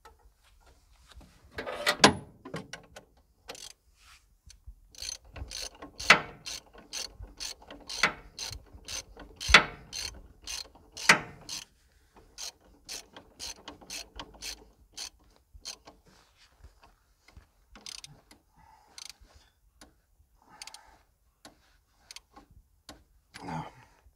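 Hand fuel-primer pump on a Caterpillar excavator's diesel engine being worked by hand, a click at each stroke about twice a second with a few louder knocks, thinning out toward the end: the fuel system being primed and bled.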